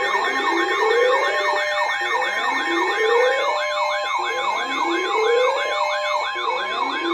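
Layered electronic siren alert sounding: a fast wailing siren cycling about three times a second over a slower sweep that rises every two seconds, with steady high tones underneath.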